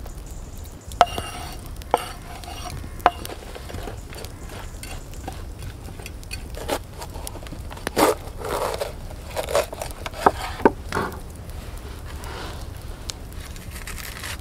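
Sliced raw potatoes scraped off a wooden board with a knife into a frying pan, with a few sharp metallic clinks about a second apart. Later a knife cuts into a red bell pepper on the wooden board, giving a run of crisp crunches.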